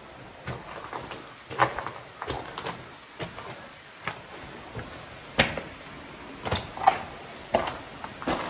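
Footsteps on rock inside a cave: irregular knocks and scuffs about every half second to a second.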